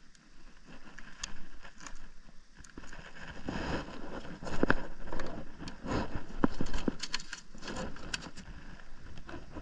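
Close rustling of cloth and clothing with irregular knocks and taps as someone moves about on wooden dock boards, busiest and loudest in the middle.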